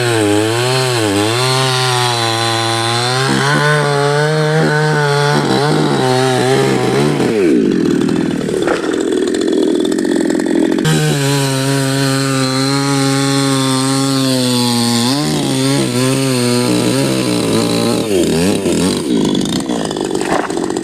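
Two-stroke chainsaw running hard while cutting neem wood, its engine note wavering up and down. Twice the steady note breaks into a rougher, noisier sound: about a third of the way in for a few seconds, and again near the end.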